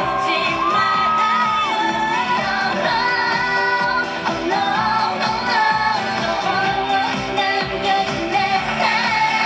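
Female K-pop duo singing a pop song over a backing track, heard from the audience through the concert loudspeakers.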